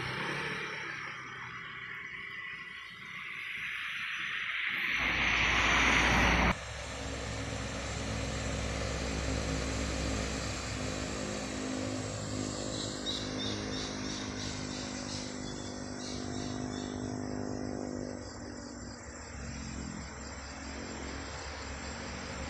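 Trucks and cars passing on a road, engines pulling at full throttle. A loud passing rise cuts off suddenly about six and a half seconds in. After that comes a steady engine hum of more traffic going by.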